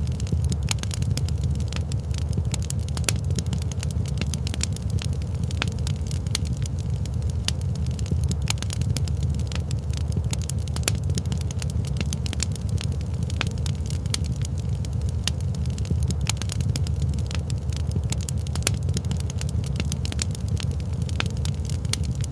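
Wood fire crackling, with many quick, irregular pops and snaps over a steady low rumble.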